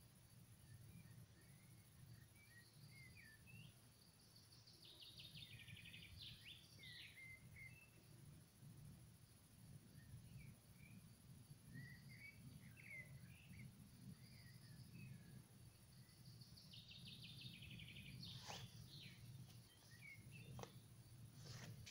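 Faint birdsong, scattered chirps with two short trilled phrases, over a low steady rumble, with a few soft clicks near the end.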